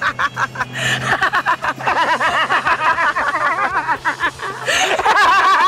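A man and a woman laughing hard together, in long runs of rapid laughter that rise and fall in pitch. A steady low hum runs underneath until near the end.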